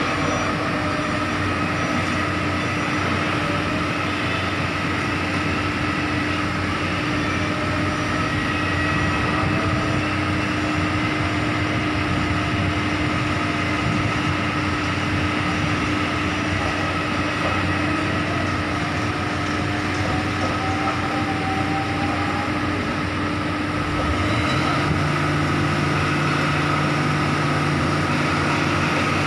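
Heavy construction machinery running: a steady diesel drone throughout, with another engine note rising in about four-fifths of the way through and then holding steady, a little louder.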